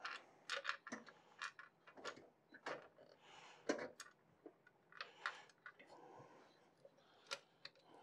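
Faint, irregular metallic clicks and ticks of a screwdriver and small screws against the steel bracket of a PC case while screws are fitted into the graphics card's slot bracket.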